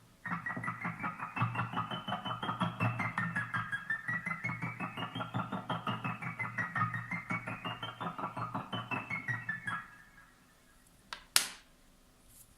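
Electronic keyboard playing a fast run of notes, about seven a second, whose pitch climbs and falls in waves for about nine and a half seconds. A single sharp click follows about eleven seconds in.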